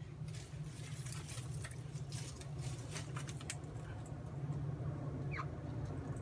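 King parrots feeding on seed: irregular small clicks and taps of beaks working the food, over a steady low hum, with one short falling whistle about five seconds in.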